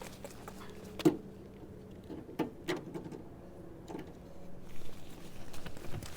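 A few knocks of firewood pieces being handled, one sharp knock about a second in and softer ones later, between footsteps, over a faint steady hum.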